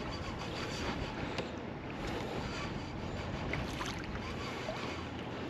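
Steady wind and small waves lapping against a kayak, with a few faint clicks.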